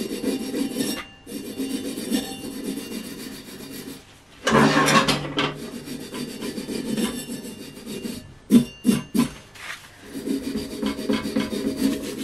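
A hand tool scraping back and forth over the metal top of a kerosene heater's wick tube, cleaning off carbon build-up. It goes in repeated rubbing strokes with short breaks, and there are a few sharp knocks about two-thirds of the way in.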